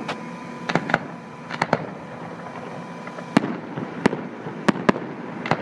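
Aerial fireworks shells bursting: about ten sharp bangs at irregular intervals, some in quick pairs.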